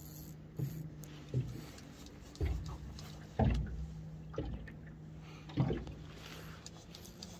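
Small boat's engine running with a steady low hum, with half a dozen irregular knocks and thumps against the boat, the loudest about three and a half seconds in.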